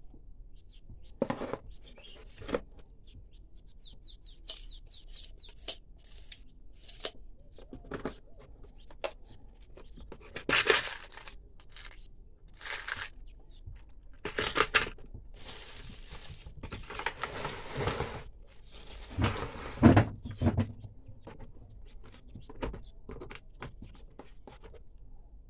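Handling noise from unpacking a drill tool kit: scattered clicks and knocks of plastic parts and tools against a hard plastic carry case, with stretches of plastic wrapping rustling and one heavier knock late on.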